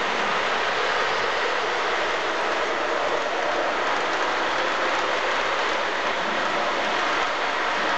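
O gauge model coal train, an MTH RS3 diesel pulling a long string of coal hoppers, running on three-rail track: a steady rolling noise from the wheels and drive, even in level throughout.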